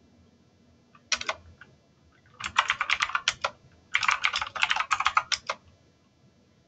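Typing on a computer keyboard: a few keystrokes about a second in, then two quick runs of keystrokes, each lasting a second or so.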